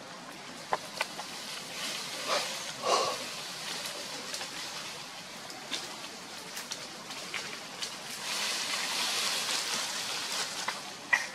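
Macaques moving over dry leaf litter: scattered rustles and crackles of leaves, with a longer stretch of rustling near the end.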